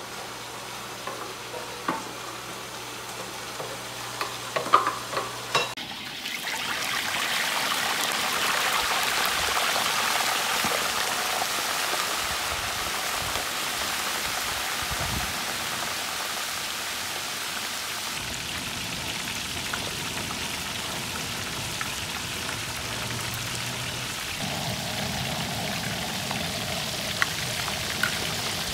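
A few light taps of a wooden spatula in a pan of simmering sauce. About six seconds in, a whole walleye deep-frying in a wok of hot oil takes over with a loud, steady sizzle.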